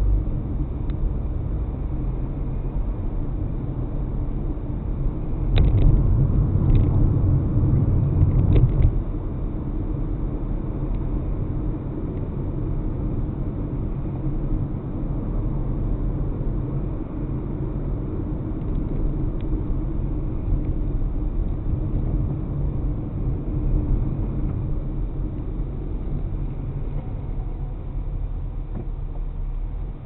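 Steady low rumble of a car driving in city traffic, heard from inside the cabin through a dashcam. It grows louder for a few seconds about six seconds in, with a few light clicks, then settles back to an even drone.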